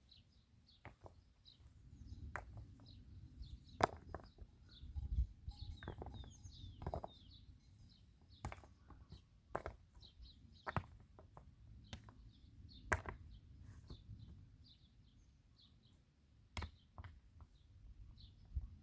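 Small birds chirping throughout, with scattered sharp knocks and taps at irregular intervals, some a second or two apart.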